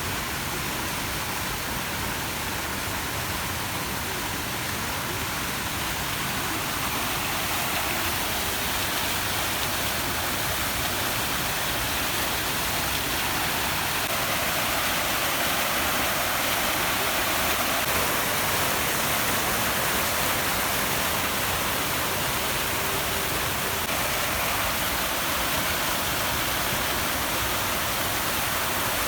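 Steady, even rush of flowing water, like a waterfall or fast stream.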